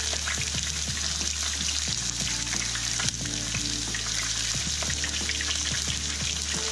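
Hot oil sizzling steadily with frequent small crackles and pops: a crappie fillet deep-frying in a skillet and diced onion starting to fry in a small pot.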